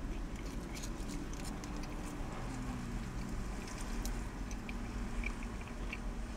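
Steady low vehicle rumble heard inside a car cabin, with faint scattered mouth clicks of a man chewing soggy chips.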